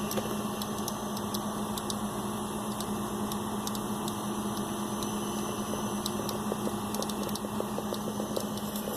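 Computer running with a steady hum and whir, with irregular sharp clicks coming from it and a quicker run of clicks near the end. This is an unidentified clicking noise from the machine.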